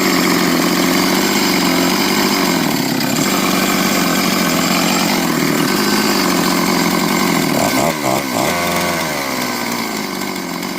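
Stihl 661 C-M chainsaw's 91 cc two-stroke engine running steadily, newly reassembled with aftermarket parts, with a brief dip and change in its note about eight seconds in.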